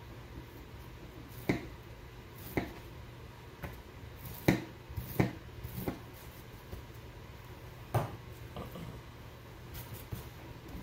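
Light taps and knocks from a tool and pieces of EVA foam being handled on a workbench, about six of them at uneven intervals, over a faint steady low hum.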